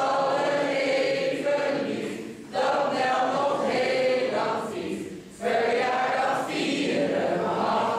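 Mixed group of men and women singing a Dutch birthday song together. The sung phrases are broken by two short pauses, about two and a half and five and a half seconds in.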